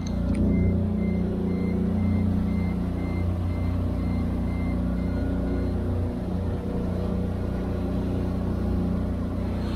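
Outboard motor running steadily as an aluminium tinny cruises, with water rushing along the hull. Over it, a short electronic beep repeats about three times a second, stopping a little under halfway through.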